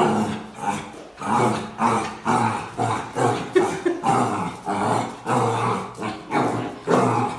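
A puppy barking and growling at its own reflection in a mirror, in short bursts about two a second.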